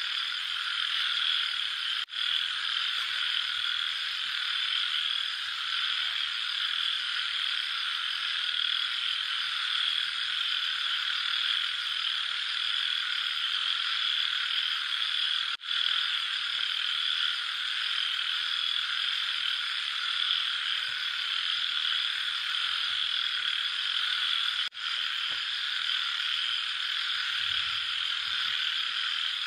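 Dense night chorus of frogs croaking, steady throughout, with three momentary dropouts: about two seconds in, near the middle, and about three-quarters of the way through.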